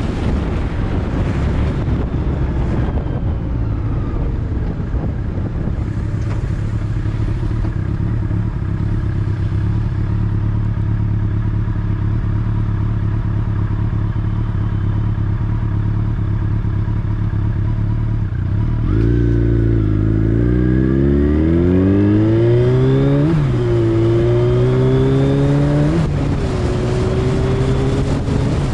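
Motorcycle engine running steadily at low revs, then about two-thirds of the way through it accelerates, the pitch climbing and dropping twice at upshifts before settling into a steady cruise.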